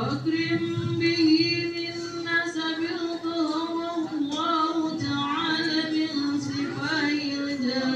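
Women singing a sholawat in a slow melody with long, held notes that waver and glide, the hadroh frame drums mostly silent.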